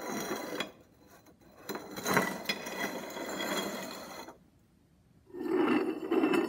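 A grating screech in three stretches with short quiet gaps between them; the last, starting about five seconds in, is the loudest.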